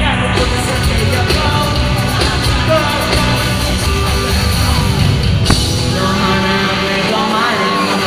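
Live concert music heard from the crowd: a male singer sings into a handheld microphone over a loud backing track.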